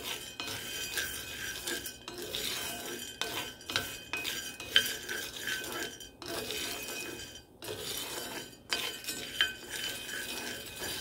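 Roasting coffee beans rattling and scraping in a small cast iron skillet as they are stirred with a spatula: a steady run of clicks and scrapes, broken by a few brief pauses.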